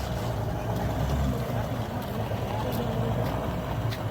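Motorboat engine running steadily with a low drone, easing off slightly after about a second, with people's voices faintly over it.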